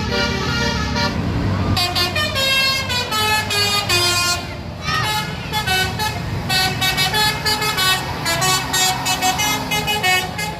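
Bus telolet horn playing a quick multi-note tune, its pitch stepping up and down several times a second, over a bus engine running.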